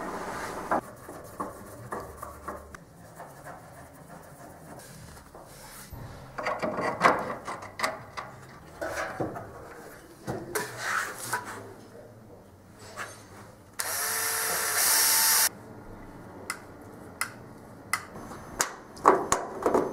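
Workshop tool work: scattered clicks, knocks and rubbing of parts being handled, and a power tool that runs steadily for under two seconds about two-thirds of the way through.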